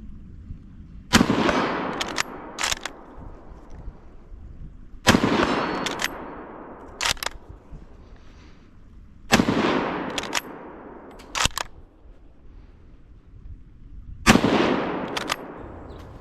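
Four rifle shots from an 8x57 Mauser bolt-action rifle (a 1918 Gewehr 98), spaced about four to five seconds apart, each echoing away over a couple of seconds. Each shot is followed within about a second by two or three sharp metallic clicks of the bolt being worked.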